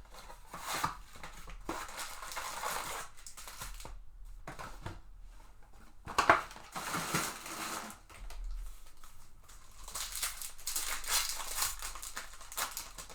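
Trading-card packaging torn open and handled: plastic wrap and pack wrappers crinkling and tearing in bursts, with a sharp snap about six seconds in.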